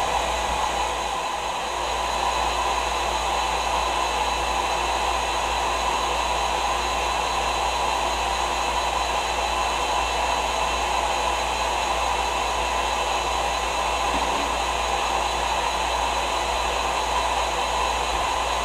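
Steady, unchanging whir of an electric motor with rushing air.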